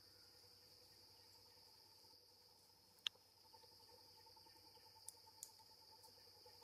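Faint, steady high drone of insects. A lower pulsing trill joins about halfway, and there is one sharp click about three seconds in, followed by two faint ticks near the end.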